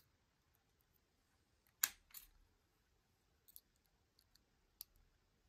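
Small metallic clicks of a lock pick and tension wrench working the pins of Harry Bow's Chicane challenge lock, fitted with rattlesnake security pins: a louder double click about two seconds in, then a few fainter clicks.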